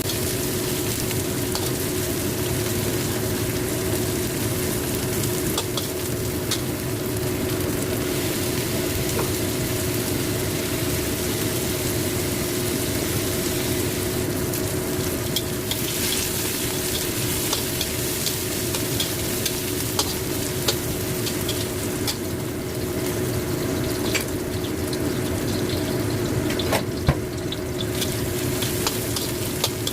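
Oseng (Indonesian stir-fry) sizzling in hot oil in a pan, stirred with a spatula that scrapes and clicks against the pan now and then, over a steady hum.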